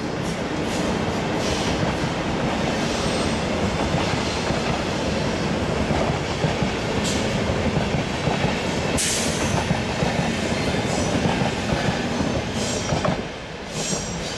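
Intercity coaches rolling past close by behind a departing DB class 120 electric locomotive: a steady rumble of wheels on rail with scattered clicks over the rail joints and points and a brief hiss about nine seconds in. It eases off slightly near the end as the train pulls away.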